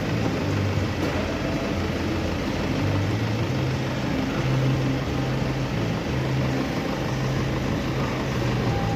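Peugeot car engine idling, a steady low drone whose pitch lines waver and break unevenly.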